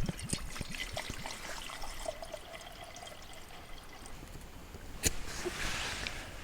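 Water pouring and trickling, with small irregular splashes, and one sharp click about five seconds in.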